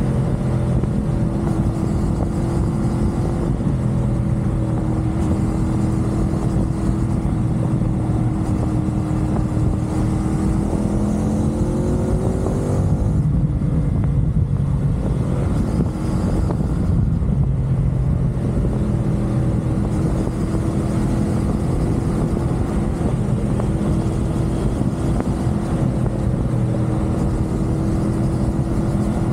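CFMoto 450SR parallel-twin engine running steadily at expressway speed under wind and road rush. About ten seconds in, the engine note climbs, breaks off near thirteen seconds, and then settles back to a steady cruise.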